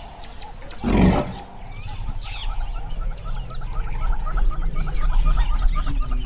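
A wild Asian elephant gives one short, loud roar about a second in. Birds then chirp in quick repeated calls over a low rumble that grows louder.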